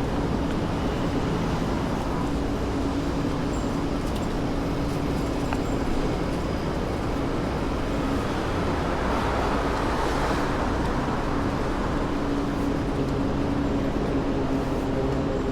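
City street traffic: a steady wash of road noise from passing cars, with a low engine hum underneath and one vehicle going by about two-thirds of the way through.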